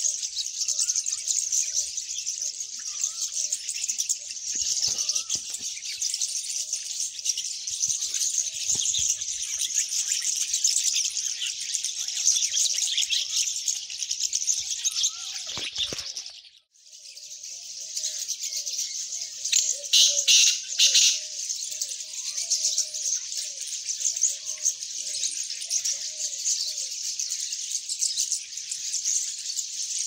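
Many birds chirping and calling together: a dense high-pitched chatter, with a short lower call note repeated again and again. The sound drops out suddenly about halfway through, resumes a moment later, and a few loud sharp chirps follow a few seconds after that.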